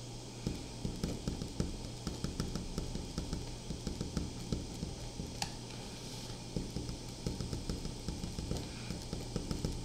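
A pen writing characters on paper: quick, irregular scratches and taps of the strokes, with one sharper tap about five and a half seconds in, over a steady low hum.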